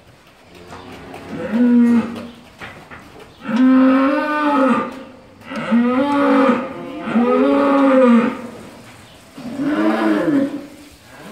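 Cow mooing five times in a row, each call about a second long, rising and then falling in pitch.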